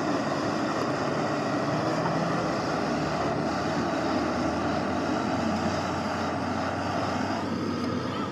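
A machine running with a steady, dense drone; the higher part of the sound thins a little about seven seconds in.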